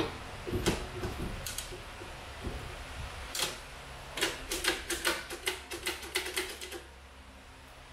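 Kickstarter of a freshly installed Lifan 125 semi-automatic engine in a Honda CT70 being kicked over on its first start, with a few scattered clicks and then a quick run of about four clicks a second from about four seconds in. The engine does not fire.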